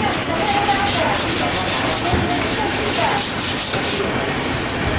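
Thin plastic bag crinkling and rustling as a block of tofu is slid into it off a metal spatula, over a steady background hiss.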